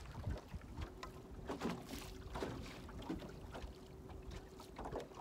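Small waves lapping against an aluminum fishing boat's hull, with a low wind rumble, a few light knocks, and a faint steady hum from about a second in.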